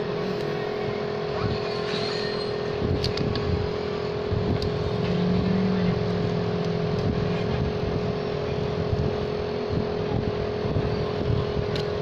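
A steady mechanical hum under a rumbling background noise, with a few faint clicks.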